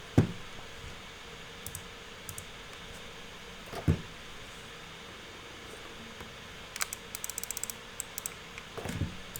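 A mechanical keyboard being handled: three dull thuds, the first the loudest, and about a second of quick, light key clicks a little after the middle.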